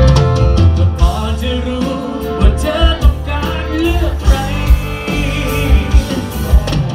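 A live rock-pop band playing, with a male singer singing into a microphone over electric guitar, bass and drums. The kick drum hits on a regular beat.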